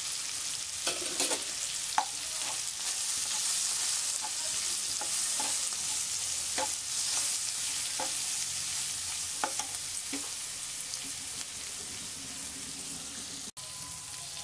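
Prawns, onion and ground spices sizzling in hot oil in a metal wok as a metal spatula stirs them, with scattered clicks and scrapes of the spatula against the pan. The spice masala is being fried down.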